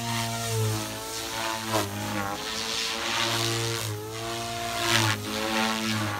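Goblin 420 electric RC helicopter (a converted Goblin 380) in flight at about 3400 rpm headspeed: the rotor blades' steady hum with the whine of the electric drive, its pitch bending up and down together several times as the helicopter manoeuvres.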